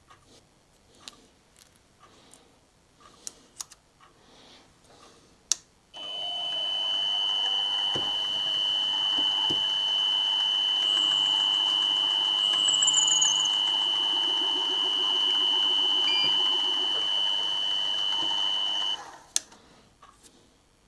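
A few small clicks and knocks of handling, then about six seconds in a small machine tool starts and runs for about thirteen seconds with a steady high whine, cutting a countersink in a screw hole of a thin aluminium dust cap. It stops abruptly near the end.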